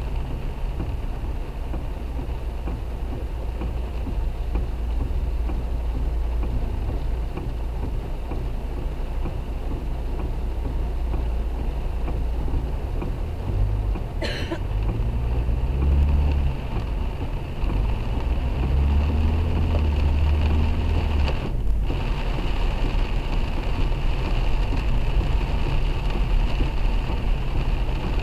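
Car driving on a wet road in rain, heard from inside the cabin: a steady low rumble of engine and tyres on wet tarmac with rain on the car. The engine note rises and falls twice around the middle as the car speeds up.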